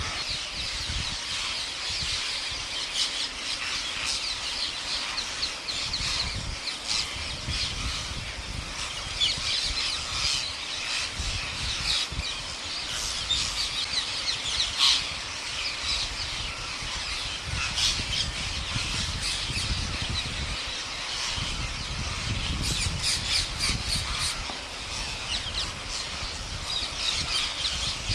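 A large flock of rose-ringed parakeets squawking and screeching continuously, many birds calling over one another in a dense din.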